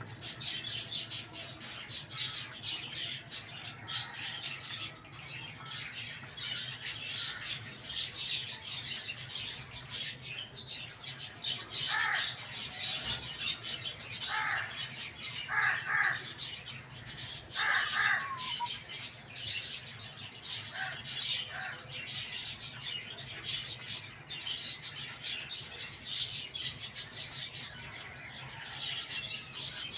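A flock of small birds chirping and twittering continuously, with a few louder, lower calls in the middle, over a faint steady low hum.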